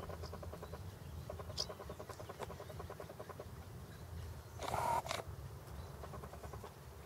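Greylag goose grazing, with a soft, rapid pulsing sound as it crops grass. A brief, louder harsh sound comes about five seconds in.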